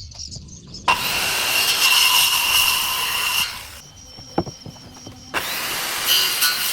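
Power tool cutting into wood in two runs of about two and a half seconds each, with a short pause and a single knock between them.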